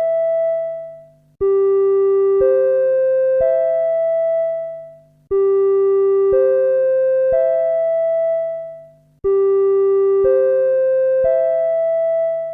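Electronic alert chime: three rising piano-like notes about a second apart, the set repeating about every four seconds, over a steady low hum.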